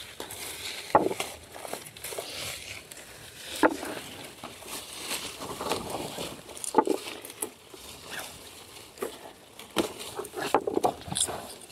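Rustling of aronia bushes with irregular short knocks and clicks as the berry clusters are picked by hand.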